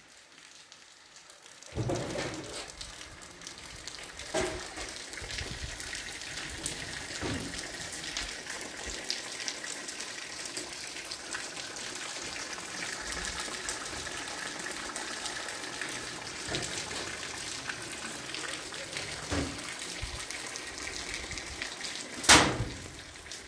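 Steady rain falling, with water running and scattered drops tapping, setting in about two seconds in. A single sharp knock near the end is the loudest sound.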